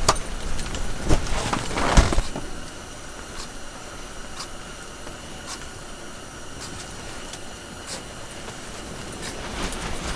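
Gear handling, a few knocks and rustles in the first two seconds, then a steady hiss of blizzard wind across the ice.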